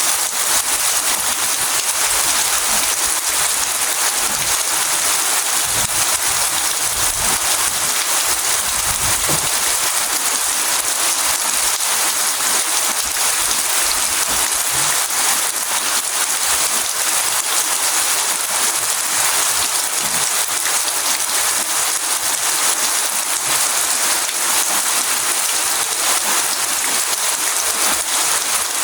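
Steady rain falling and pattering on a surface, a dense even hiss with fine crackling drops.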